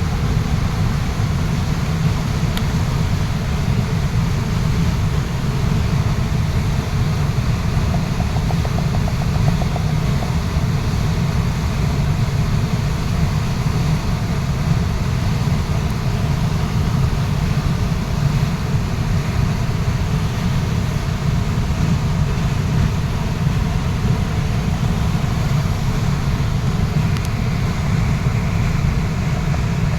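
Waterfall's water rushing steadily, heavy in the deep low end.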